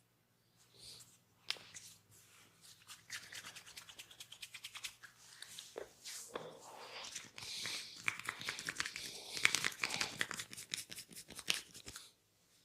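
A barber's hands working quickly over a customer's head or skin in a massage: fast, rhythmic scratching and rubbing strokes, several a second, growing denser and louder after a few seconds, then stopping just before the end.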